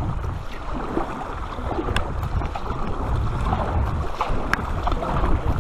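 Kayak paddle strokes and water splashing around the hull of a sit-on-top kayak on calm sea, with a few light knocks, under a steady rush of wind on the microphone.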